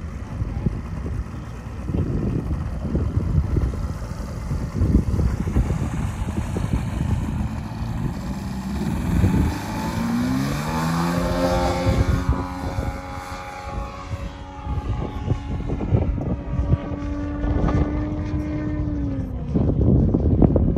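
The DA-200 four-cylinder boxer gas engine of a 40%-scale Extra 330 LX model airplane is opened up for the takeoff roll. Its note rises in pitch about ten seconds in, holds steady at full power, then drops in pitch near the end. Gusty wind buffets the microphone in the first half.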